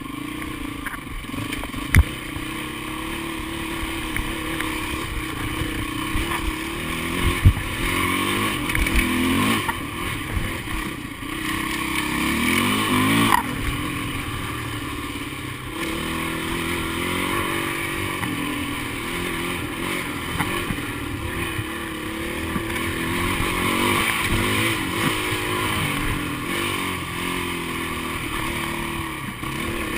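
Dirt bike engine running as the bike rides a rough dirt trail, its revs rising and falling with the throttle, with a couple of sharp knocks about two seconds in and again after seven seconds.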